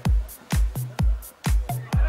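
Electronic dance music with a steady four-on-the-floor kick drum at about two beats a second and a hi-hat tick between the beats.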